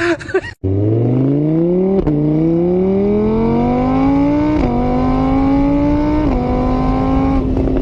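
A vehicle engine accelerating through the gears. Its pitch climbs steadily and drops three times as it shifts up, then holds steady near the end.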